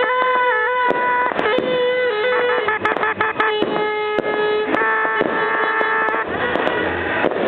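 Fireworks popping and crackling in many sharp cracks, over steady pitched tones that hold and then shift in steps, like a melody.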